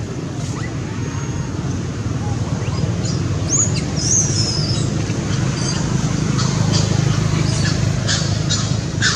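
Outdoor ambience: a steady low rumble, with a few high, gliding chirps about four seconds in and short high chirps near the end.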